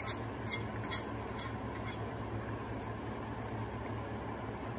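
Eggs being cracked over a glass bowl: a string of light clicks and taps of eggshell and a fork against the glass, mostly in the first two seconds, over a steady low hum.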